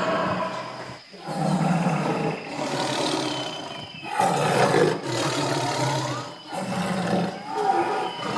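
Tiger roaring and growling in a series of low calls about a second long, broken by several abrupt cuts.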